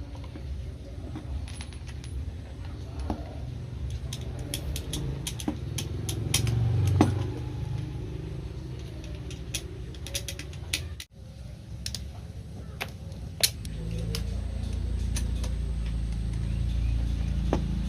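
Small metal parts being handled: scattered light clicks and clinks over a steady low rumble, the rumble growing louder near the end.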